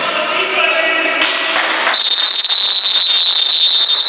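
Players shout and a futsal ball thuds on a sports-hall floor, with echo. About two seconds in, a referee's whistle gives one long, steady, loud blast that lasts to the end: the signal closing the first half.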